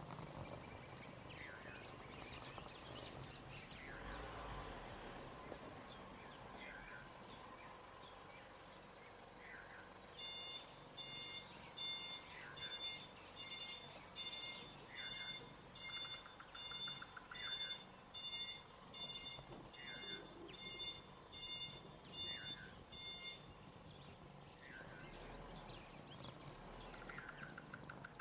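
A regular electronic beeping, a little more than one beep a second, sets in about a third of the way through, runs for roughly thirteen seconds and stops. Birds chirp now and then throughout over a faint outdoor background.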